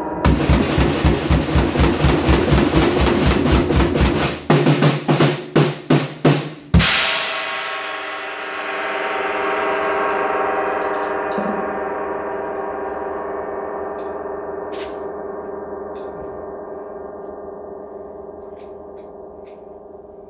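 Drum kit played in a fast run of strokes over a ringing gong, then a string of heavier tom hits, ending in one big crash about seven seconds in. The gong and cymbals then ring on, swelling briefly and slowly dying away, with a few faint light taps.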